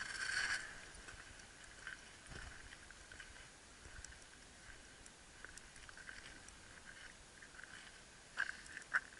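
Mostly quiet, with light footsteps and faint scattered ticks on gravel and boards. A louder crunching scrape dies away in the first half-second.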